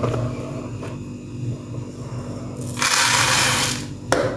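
Dry lentils poured from a small bowl into a large bowl: a rushing rattle of grains for about a second, near the end, after some soft handling of the bowls.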